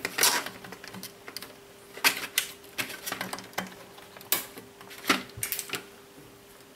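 Irregular sharp clicks and taps of front-panel buttons and the power switch being pressed on a Rigol DG1022U function generator as it is powered up for testing. A faint steady tone runs under them.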